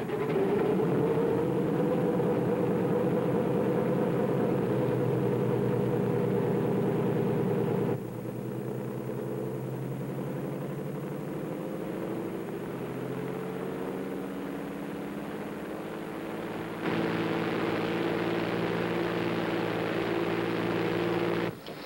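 Aircraft piston engine running steadily on a test bed, a steady droning note. About eight seconds in it drops suddenly to a quieter level, its note creeping slightly higher, and about seventeen seconds in it jumps back up loud.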